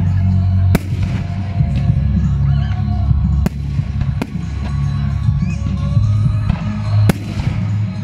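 Fireworks display: aerial shells burst with four sharp bangs, just under a second in, twice around three and a half to four seconds in, and once near the end, over loud music with a heavy bass.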